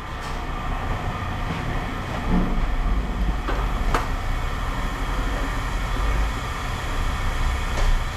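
A vehicle engine running steadily with a low rumble, with a few light clinks of scrap metal.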